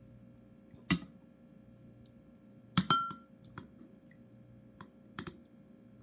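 Eating utensils clinking against a dish: a sharp clink about a second in, a louder double clink near the middle that rings briefly, then a few lighter taps.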